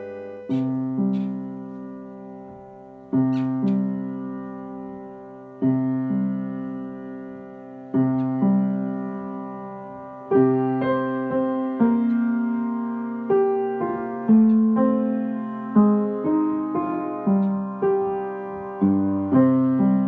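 Upright piano playing a slow tune: chords struck about every two and a half seconds and left to ring and die away, then, from about halfway, notes coming more quickly in a flowing melody.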